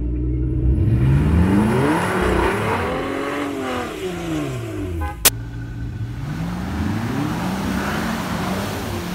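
Pickup truck engine revving up and falling back twice under load on a tow strap, with tyres spinning on ice during an attempt to pull a stuck vehicle free. A single sharp crack sounds about five seconds in.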